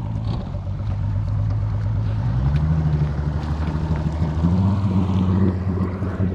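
Bass boat's outboard motor running at low speed, its pitch stepping up twice: about two and a half seconds in and again a couple of seconds later.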